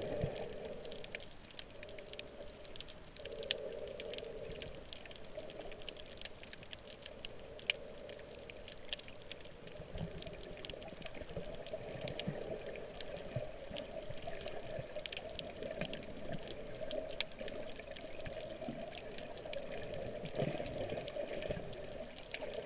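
Underwater ambience heard through a GoPro's waterproof housing: a steady muffled rush of water with many faint scattered crackles and clicks.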